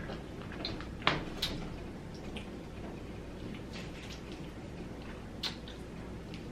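Close-up eating sounds of someone chewing food: scattered wet smacks and small mouth clicks, with a sharper smack about a second in and another near the end.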